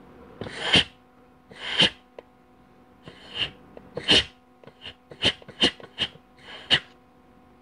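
Short blasts of compressed air from a blow-gun nozzle into the 2-4 servo passage of a 700R4 transmission case, air-checking that the 2-4 band applies. There are about nine brief hisses, a second or so apart at first and quicker in the second half.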